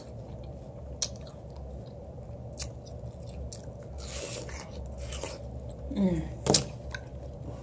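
Close-up biting and chewing of juicy watermelon, with scattered short wet clicks. A brief hummed voice sound comes about six seconds in.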